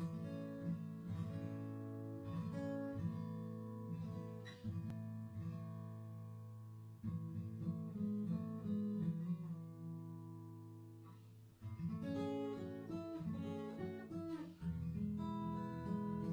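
Background music on acoustic guitar: a run of plucked notes and chords, with a brief lull about two-thirds of the way through before the playing picks up again.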